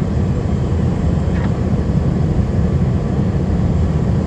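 A heavy plow truck's engine and road noise running as a steady low drone, heard from inside the cab.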